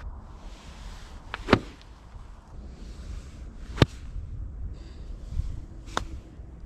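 Golf iron striking the ball three times, each a single sharp click, about two seconds apart; the first strike is the loudest.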